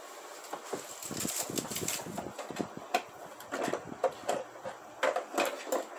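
Rummaging for a pair of pliers: a busy run of small clicks, clacks and rustles as objects are handled and moved about, starting about half a second in.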